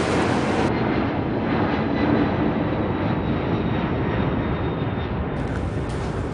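Steady rumbling cabin noise of a moving passenger vehicle, with no distinct events.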